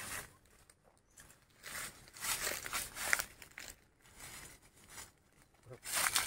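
Dry fallen leaves rustling and crunching in several short bursts with quiet gaps between, as feet shift and hands pick cashew apples out of the leaf litter.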